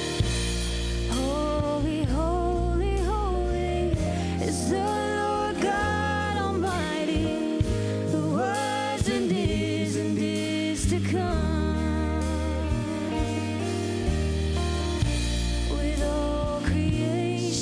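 Live church worship band playing a slow worship song: a wavering sung melody over sustained bass notes and a steady drum beat.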